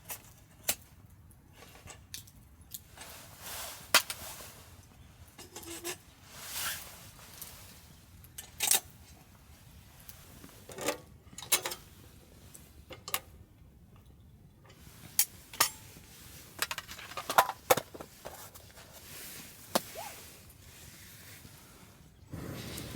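Irregular clinks and knocks of camp cookware and gear being handled, a couple of dozen scattered sharp taps with quiet between them.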